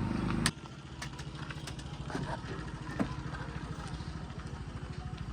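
Diesel engine of heavy earth-moving machinery dropping sharply in level about half a second in, then running at a steady idle with a fast, even low pulse and a few faint clicks.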